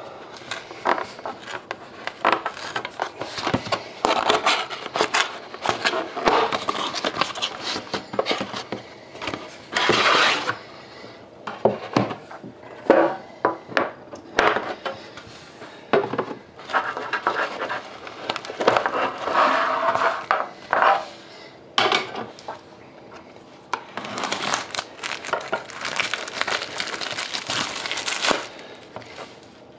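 Hands opening a trading-card box and the tin packed inside it: many taps and clicks, with longer stretches of scraping and rustling as cardboard and metal are slid and pulled apart.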